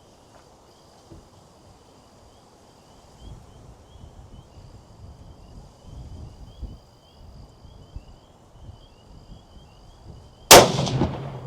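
A single gunshot about ten and a half seconds in, sudden and very loud, with a short ringing tail. Before it there is only faint background.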